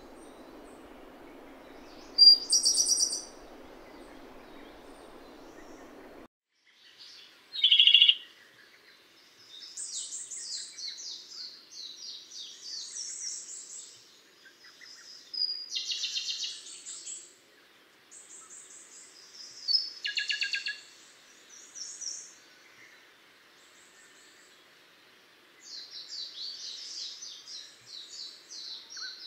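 Japanese robin singing: loud high notes and fast rattling trills in short phrases repeated every few seconds. A steady low hiss runs under the song and cuts off abruptly about six seconds in.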